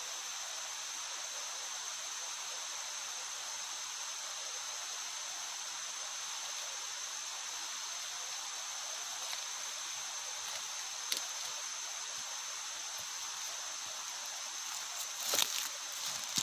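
Steady tropical forest ambience: an even hiss with a high, steady ringing tone running through it. A single click comes partway through, and a short burst of clicks and rustles comes about a second before the end.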